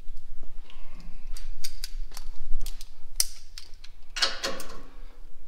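Hand ratchet wrench clicking in quick, uneven runs as bolts are loosened on a truck's front bumper bracket, with a short rasping burst about four seconds in.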